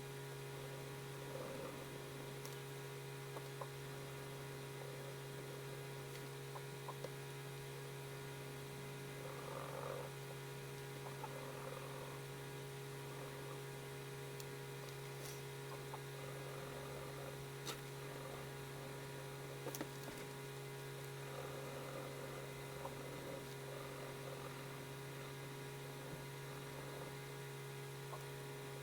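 Steady low electrical hum, with soft pencil scratching on paper coming and going around ten seconds in and again past twenty seconds, and a few small ticks.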